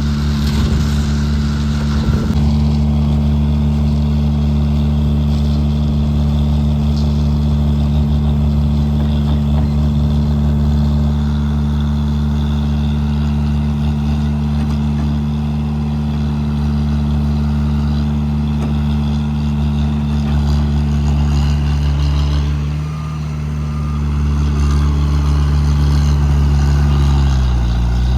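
Heavy engine of road construction machinery running steadily, with its pitch dipping briefly twice: once about two-thirds of the way through and again near the end.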